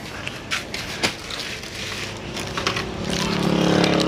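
Handling noise from a hand-held phone being carried, with scattered clicks and knocks. About three seconds in, a steady low hum comes in and grows louder.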